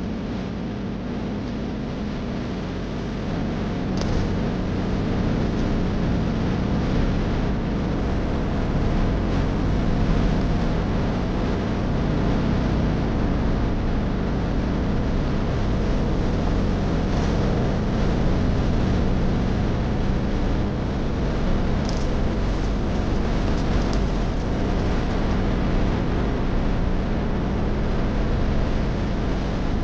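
Steady road noise from a moving car: tyres on the road and the engine running at a constant pace, a little louder from about three seconds in.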